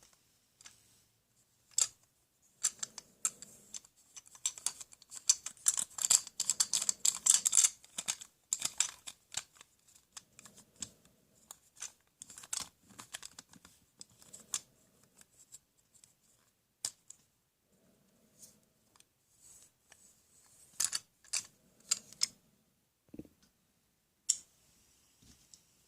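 Plastic toy tools and parts being handled: irregular clicks and rattles, with a denser spell of crackly clicking about five to eight seconds in.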